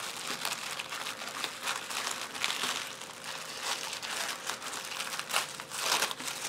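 Tissue paper crinkling and rustling as hands unfold it, with a louder crackle about two and a half seconds in and again near the end.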